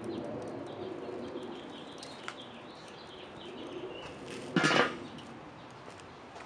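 Enamelled steel lid of a charcoal kettle grill set down onto the bowl with a brief metallic clatter about four and a half seconds in. Birds call faintly in the background.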